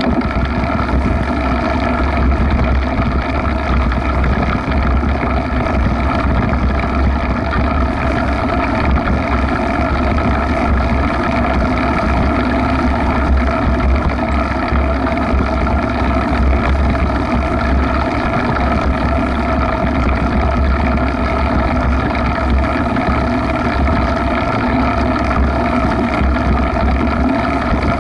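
Steady, loud low rumble of wind buffeting an action camera's microphone while a mountain bike rides along a grassy trail.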